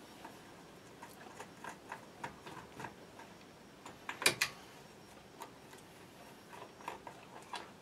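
Faint clicking of a quarter-inch socket ratchet in short runs as the cover fixings of a Lucas ACR alternator are undone, with one sharper metal click about four seconds in.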